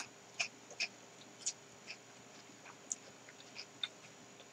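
Faint, crisp crunches of someone chewing a Giant Cone ice cream cone, its wafer cone and cookie pieces. There are about eight irregular crunches, roughly half a second apart.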